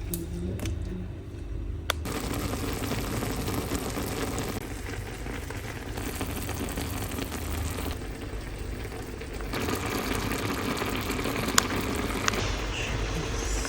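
Noodles cooking in a pot on the stove, a steady bubbling hiss that sets in about two seconds in, with a couple of light clicks.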